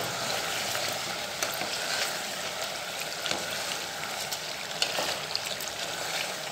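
Chicken pieces frying in oil with ground spices in an aluminium pot, a steady sizzle, while a ladle stirs them with scattered scrapes and clicks against the pot.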